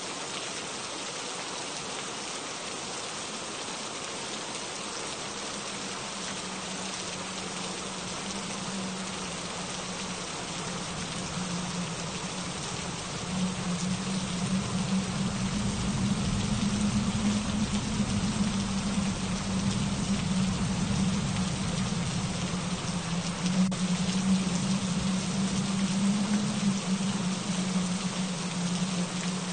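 Steady rain falling, an even hiss of many drops. A low drone joins it about a fifth of the way through and grows louder from about halfway, becoming the loudest part.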